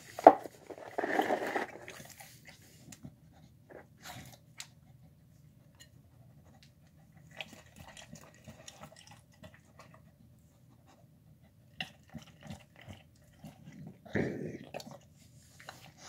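Dogs eating: intermittent chewing and crunching with wet licks and small clicks as they lick up scraps from a tile floor, loudest in the first two seconds and again near the end.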